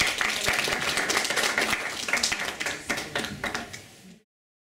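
Audience applauding, the clapping thinning out and fading, then the sound cuts off abruptly a little before the end.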